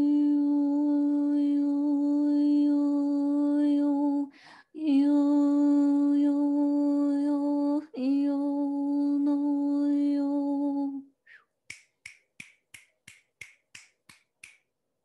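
A woman's voice toning one steady low note, held three times with a quick breath between each, then a quick run of about ten sharp clicks, roughly three a second.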